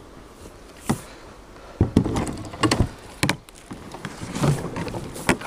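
Knocks and scrapes on a plastic sit-on-top kayak as a person climbs in and settles, with several sharp thumps among rustling.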